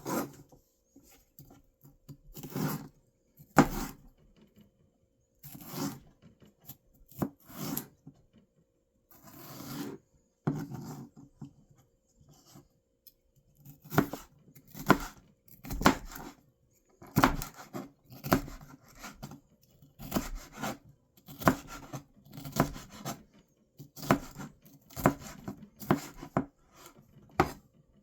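Knife cutting food on a cutting board in irregular strokes, with some scraping. The strokes come more closely together in the second half.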